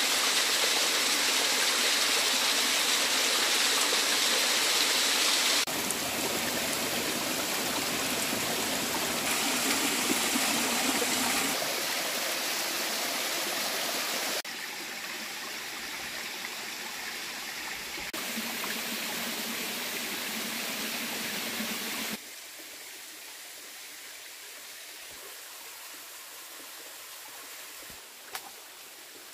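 Rushing water of a rocky forest stream spilling over small cascades, a steady rush that is loudest at first and drops in steps at several cuts to a quieter, more distant flow.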